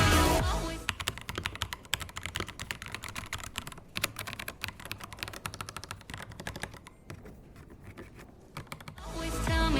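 Typing on an AKKO 5075B Plus mechanical keyboard: a quick, dense run of key clicks that thins out and gets quieter later on. Background music fades out in the first second and comes back near the end.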